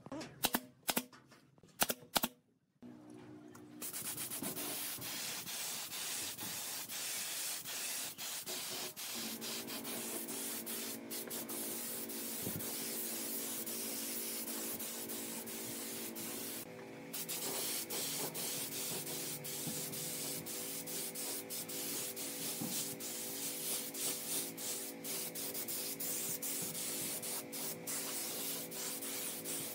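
A pneumatic brad nailer firing about four quick shots into wood, then a long steady hiss of compressed air from a paint spray gun.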